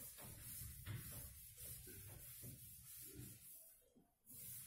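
Faint, irregular scratching of a marker writing on a whiteboard, over a low room hum.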